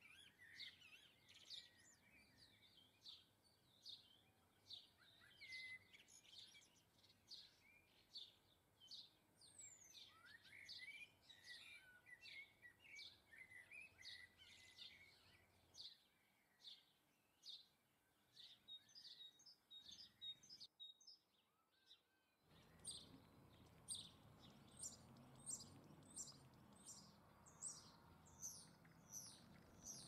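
Faint chirping and calling of small garden songbirds: many short, quick falling chirps, repeated densely. Roughly two-thirds of the way through the sound drops out for a couple of seconds, and when it returns the chirps continue over a low background noise.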